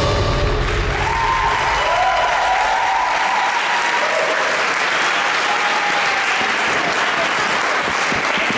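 Audience applauding as the dance music ends, the music fading out in the first second. A few shouted cheers rise over the clapping in the first couple of seconds.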